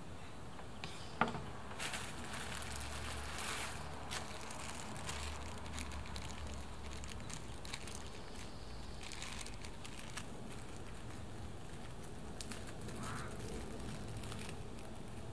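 Clear plastic wrapping and a small plastic bag of bolts rustling and crinkling in the hands in short bursts. A single sharp knock about a second in.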